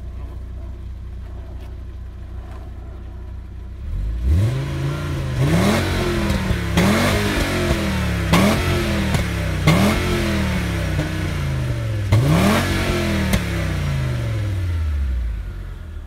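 Seat Toledo's stock 2.3-litre VR5 (AGZ) five-cylinder engine heard at the exhaust. It idles steadily, then from about four seconds in is revved in a run of quick blips, each rising sharply in pitch and falling back. After the last one it slowly settles to idle near the end.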